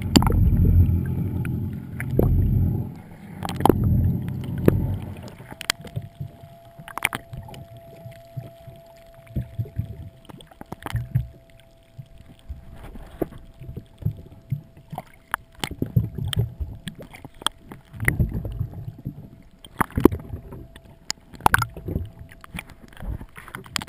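Muffled underwater sound from a camera in a waterproof housing just below the surface: water churning and sloshing with scattered sharp clicks and knocks. The low churning is heavy for the first five seconds, then drops off, and a faint steady tone comes in.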